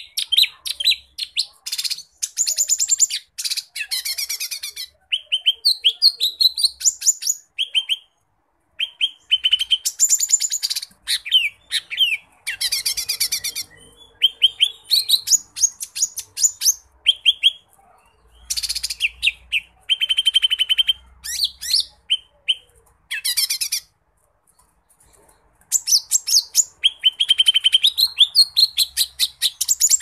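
Cucak ijo mini (green leafbird) singing nonstop: a fast, varied song of rapid chirps, trills and buzzy phrases packed with different motifs. It comes in bursts of a few seconds, with two short pauses.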